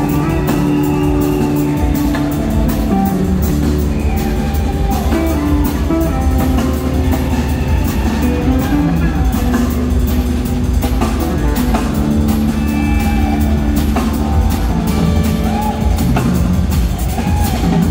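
Live rock band playing an instrumental jam: electric guitar lines, some gliding in pitch, over a steady bass and drum-kit groove.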